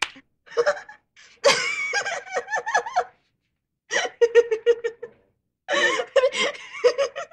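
A person laughing off camera in three bouts of rapid, high-pitched giggles.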